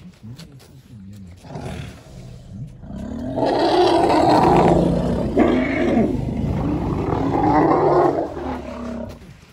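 African elephant calling loudly: a low rumble builds, then from about three seconds in a harsh, drawn-out call runs for about five seconds, with a brief break in the middle.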